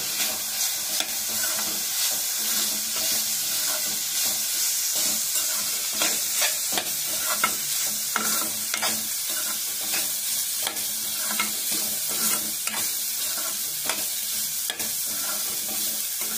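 Boneless chicken pieces coated in spice powders sizzling in hot oil in a pan while a spatula stirs them, with irregular clicks and scrapes of the spatula against the pan over a steady sizzle. The chicken is being fried down until dry.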